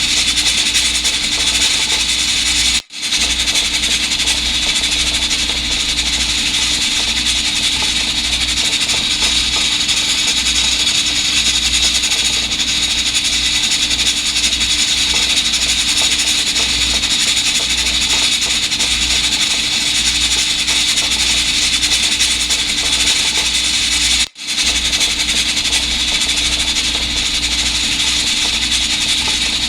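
Steady scrubbing and rubbing of a cloth wiping an electric pressure rice cooker, over a low hum. It breaks off for an instant twice.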